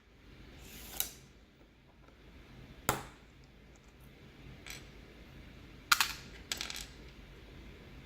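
Halo True mechanical keyboard switches being handled with a switch opener: a handful of sharp plastic clicks and clacks, a second or two apart, the loudest about six seconds in.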